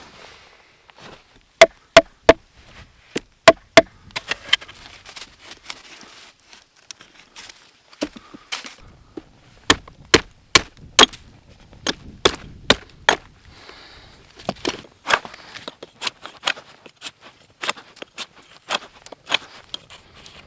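Wood being chopped: a run of sharp, irregular strikes, about one or two a second, with short pauses between runs.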